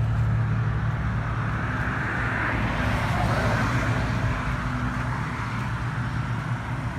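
Road traffic noise under a steady low hum, with a passing vehicle whose sound swells and fades about two to four seconds in.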